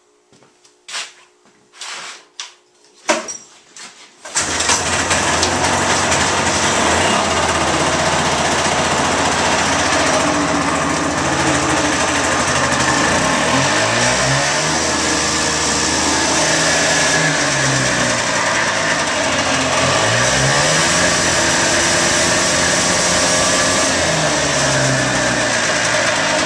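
The 1976 John Deere 340 Liquifire snowmobile's liquid-cooled two-stroke engine is started: a few short knocks, then the engine catches about four seconds in and runs steadily. Its speed dips and rises a couple of times. It starts readily, and the owner says it is probably running a little rich on plenty of oil after its rebuild.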